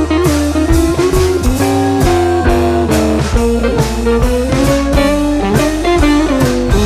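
Background music: a blues-style electric guitar playing bending lead lines over bass and a steady drum beat.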